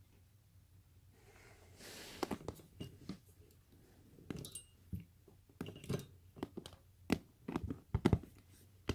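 A cat clawing and biting at a dangled cord toy, heard as irregular scratching, rustling and sharp clicks. The sounds start about two seconds in, with hands and clothing brushing against a leather couch.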